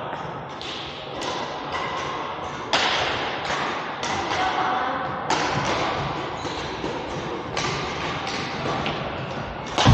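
Badminton rackets striking shuttlecocks: a rapid, irregular series of sharp hits, several a second at times, each followed by a short echo, with faint voices behind and a heavier thud at the very end.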